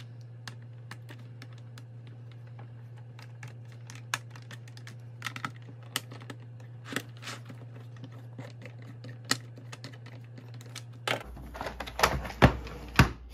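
Scattered small clicks and ticks of a screwdriver backing Phillips screws out of a plastic keyboard case, with fingers handling the screws and case, over a steady low hum. A few louder knocks come near the end.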